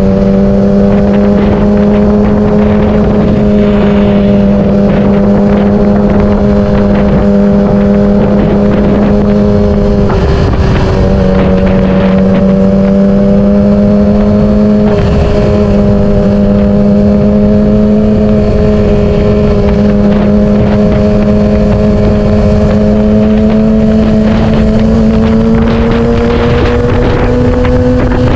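Yamaha R6's 600cc inline-four engine running at a steady, high cruising pitch while riding, with two brief dips in the note about ten and fifteen seconds in and a slight rise near the end. Wind rushes over the microphone throughout.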